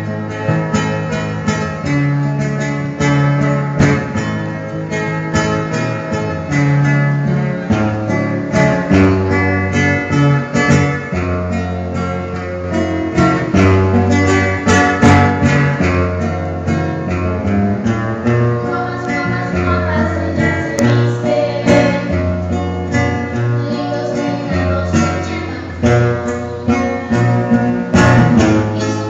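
Live acoustic guitar with plucked notes and some strums, accompanying a woman singing into a microphone.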